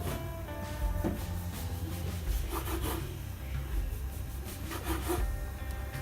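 Knife sawing through slices of bread in repeated strokes, with music underneath.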